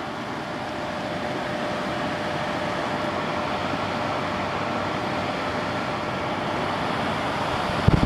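A 2000 Quasar Cool Look 6000 BTU window air conditioner (Panasonic-built) running, its fan blowing steadily with a faint steady hum, growing gradually louder. A loud low rumble starts right at the end.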